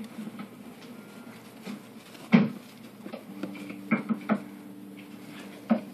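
Teddy bear hamsters scrabbling in shredded bedding, with scattered light clicks and knocks and one sharper knock a little over two seconds in. A low steady hum comes in about halfway.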